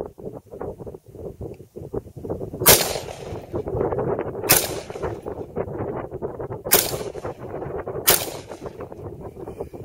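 Smith & Wesson M&P AR-15 rifle in 5.56 firing four single semi-automatic shots at uneven intervals, about one to two seconds apart.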